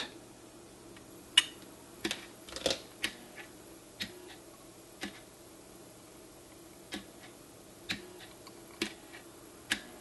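NuTone 8-note long-tube door chime base, without its tubes, playing its eight-note front-door sequence: the solenoid plungers fire one after another, sequenced by the Telechron clock motor, giving a run of sharp clicks roughly a second apart with no ringing notes.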